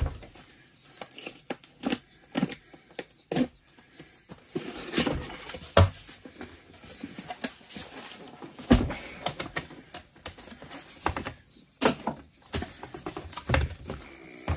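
Cardboard box being opened and handled: flaps lifted and folded back, giving irregular taps, clicks and brief rustles.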